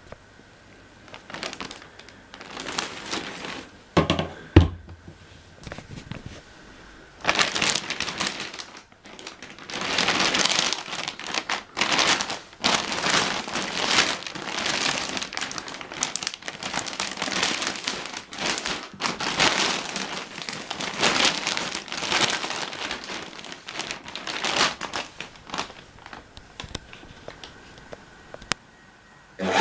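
Plastic futon vacuum-compression bag crinkling and rustling as it is handled, in irregular bursts that grow denser after about seven seconds, with one dull thump about four seconds in.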